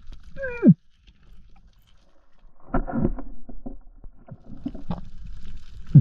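Underwater just after a missed speargun shot: a short tone slides down in pitch about half a second in. After a quiet gap come scattered clicks and knocks.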